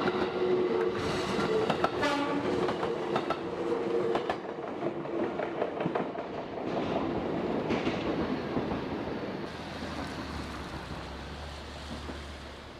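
A passing train: a rumble with clatter and steady horn-like tones for the first several seconds, fading away gradually toward the end.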